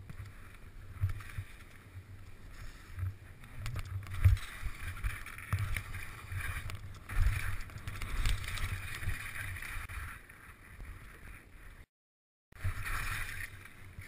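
Skis hissing over snow on a fast downhill run, with wind buffeting the helmet camera's microphone in uneven low rumbles; the sound cuts out for about half a second near the end.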